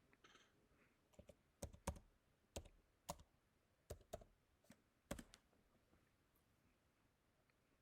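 A series of about a dozen sharp, irregularly spaced clicks and taps, starting about a second in and stopping a little after five seconds in.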